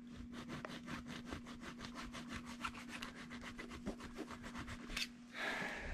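Hand file being worked back and forth over an aluminium intake manifold casting, a quick even run of rasping strokes, knocking a raised casting burr down flush. A louder rush of noise comes near the end.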